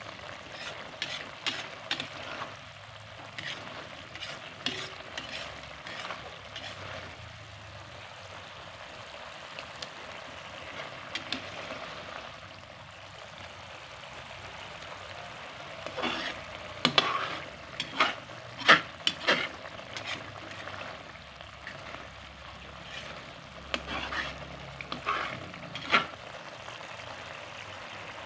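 Chili-garlic sambal frying in oil in a pan, sizzling steadily while a metal spatula stirs it. The spatula scrapes and knocks against the pan in bunches of sharp clicks, the loudest a little past halfway.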